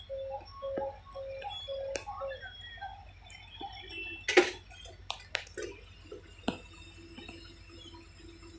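Electronic warning beeper at a railway level crossing, sounding about twice a second, which stops a little over two seconds in. A few sharp clicks follow, the loudest a single sharp knock about four and a half seconds in, over a faint steady hiss.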